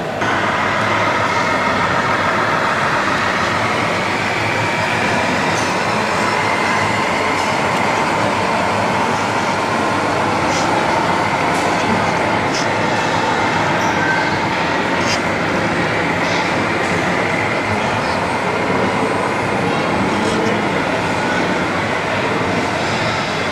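Steady whine of radio-controlled model trucks' electric motors and gear drives over a constant din, with a few faint clicks.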